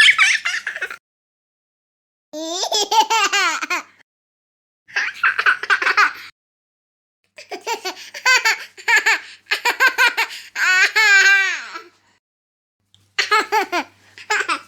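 Short stock clips of high-pitched laughter, one after another, about six in all, each separated by dead silence.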